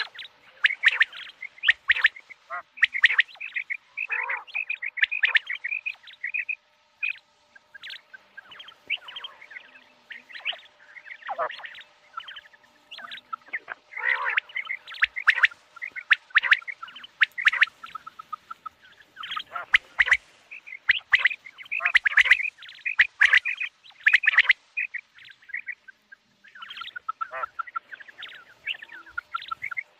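Common quail calling: clusters of short, sharp chirping notes repeated over and over, with a few lower notes sliding downward in between.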